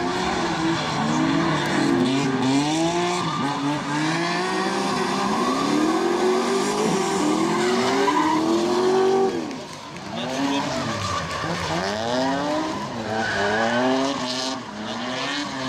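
Drift cars at full throttle: engines revving up and down again and again over the screech of sliding tyres, with the revs dropping sharply about ten seconds in before climbing again.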